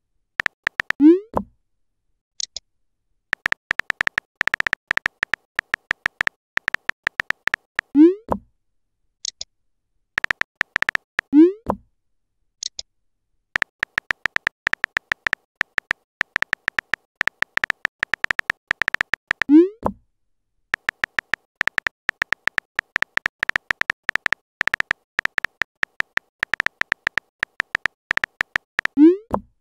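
Texting-app sound effects: long runs of rapid keyboard-typing clicks as messages are typed. Each message is sent with a short rising "bloop" pop, five in all, and a brief high chirp follows a few of the pops.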